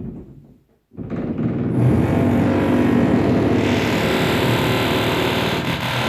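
A power tool from renovation work running loudly with a steady motor drone. It dies away under a second in, then starts again abruptly and keeps running.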